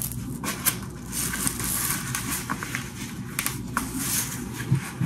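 Hook-and-loop (Velcro) fastening of a manual blood pressure cuff crackling as the cuff is wrapped and pressed closed around an upper arm, with short rustles and clicks of handling.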